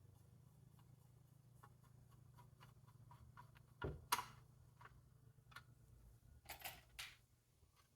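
Scattered small clicks and taps of desktop computer parts being handled, over a faint low hum. A sharper pair of clicks comes about four seconds in, and a quick cluster comes a little before the end.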